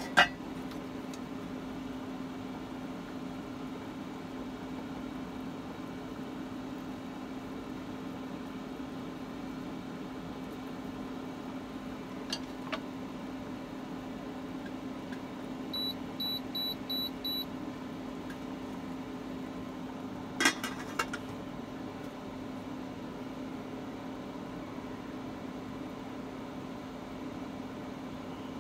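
Induction cooktop running under a steamer pot with a steady hum and low drone. About halfway through come five quick high beeps as the cooktop's power is stepped up, then a short metallic clatter as the stainless-steel steamer lid is set back on the pot.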